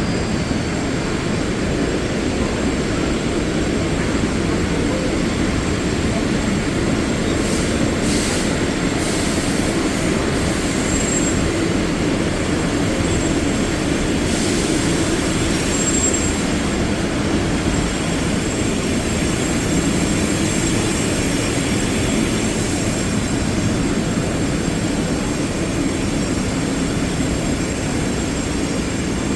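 Steady loud rumbling noise, with a few short high-pitched squeals around eight seconds in and again around fifteen seconds in.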